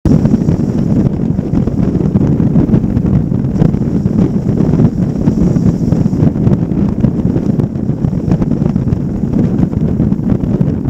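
Wind buffeting a motorcycle-mounted microphone heavily at riding speed, with the bike's running engine and tyre noise underneath as a dense, steady low rumble.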